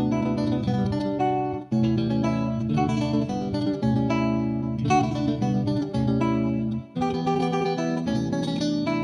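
Background music played on plucked guitar, with short breaks between phrases a little under 2 seconds in and about 7 seconds in.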